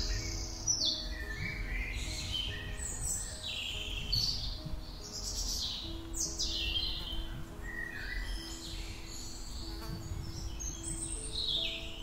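Chorus of many rainforest birds chirping and calling in short, quick, overlapping phrases, many of them falling in pitch. Under them, soft music holds long steady notes that change every few seconds.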